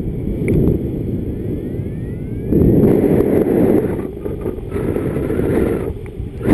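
Wind buffeting the camera microphone during a paraglider flight: a steady low rush that surges louder about two and a half seconds in and again near the end.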